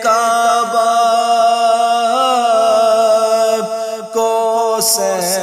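An Urdu naat being sung: a voice holds long, drawn-out notes with a slight waver, breaking off briefly a few times.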